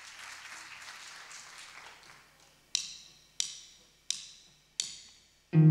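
Faint audience applause dying away, then a count-in of four sharp clicks about two-thirds of a second apart. The band comes in with a loud chord near the end.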